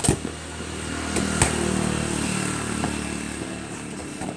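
A motor vehicle engine passes by, swelling over the first two seconds and then fading as its pitch sinks. A football is kicked twice, with sharp thuds near the start and about a second and a half in.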